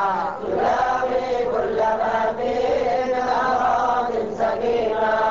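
Male voice chanting an Arabic Sufi devotional qasida, drawing out long, bending melodic notes without clear words.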